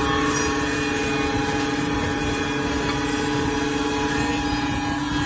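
MB2012B wood round stick milling machine running, a steady mechanical hum made of several steady tones over a constant noise; one of the higher tones stops about four seconds in.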